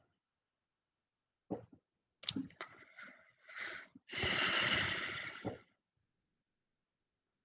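A person's breath noises close to the microphone: a few short sniffs and breaths, then a long exhale that lasts about a second and a half.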